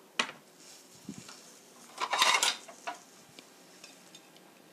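A cooking pot and a ceramic plate clattering as they are handled. A knock comes just after the start, then a short burst of clinks and clatter about two seconds in, then a few lighter clicks.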